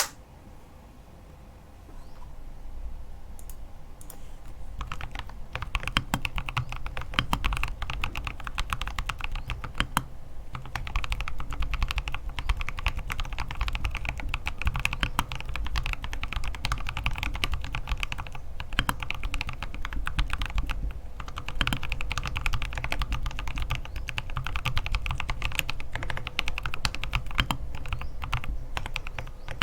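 Typing on a KBDfans Odin mechanical keyboard with lubed Boba U4T tactile switches on a brass plate, gasket-mounted with foam and tape mod, under MT3-profile keycaps. A few scattered keypresses give way about five seconds in to fast, continuous typing, broken by a few short pauses.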